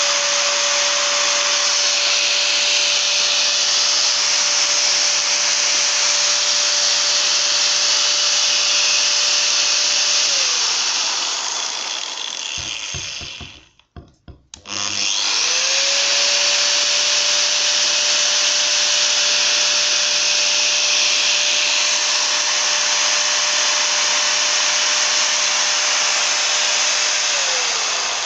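Narex EBU 125-6 angle grinder running free with no load, a steady whine; about ten seconds in it is switched off and winds down, with a few clicks as it is handled. It then runs back up to speed, runs steadily, and starts to wind down again near the end.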